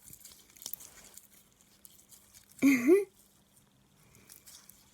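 Faint sticky clicks and crackles of stiff, overactivated glitter-glue and borax slime being handled. A short hummed vocal sound that rises in pitch comes about two and a half seconds in.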